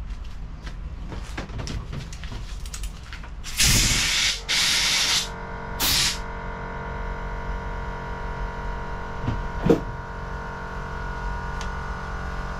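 Two loud hissing blasts a few seconds in and a shorter one at about six seconds, like air or a spray, followed by a steady electrical hum with a faint whine.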